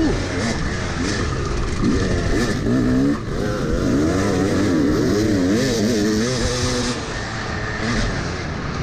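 Yamaha YZ250 two-stroke dirt bike engine revving hard, its pitch rising and falling again and again as the throttle is opened and rolled off, over wind rush on the microphone.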